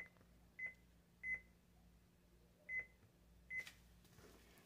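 Faint, short, high electronic beeps, five of them at uneven intervals, followed by a brief rustling noise near the end.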